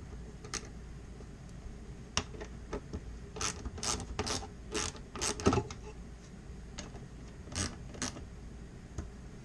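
Hand tool working the small screws out of the engine computer (PCM) case from a Ford 7.3 Powerstroke: a run of irregular short clicks and scrapes, busiest in the middle.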